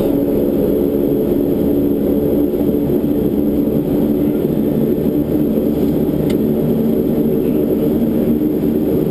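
Cockpit noise of a Beech 1900D's twin Pratt & Whitney PT6A-67D turboprop engines and propellers running steadily: a constant drone with several humming tones over a low rumble. A faint click about six seconds in.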